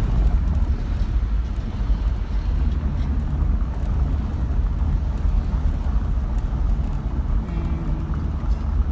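Car driving, a steady low rumble of engine and road noise heard from inside the car.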